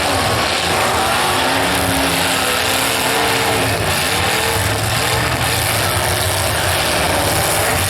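Demolition derby cars' engines running and revving, several at once, with the pitch rising and falling over a steady loud din.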